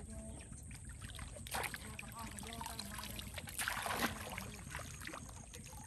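Water splashing in two short bursts, about a second and a half in and again near four seconds, over a low steady background, with faint voices.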